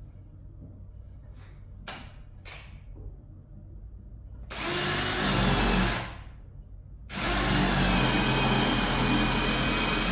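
A power tool running in two bursts: a short run of about a second and a half, then after a brief pause a longer run of about three seconds, each with a steady high whine. A few faint knocks come before it.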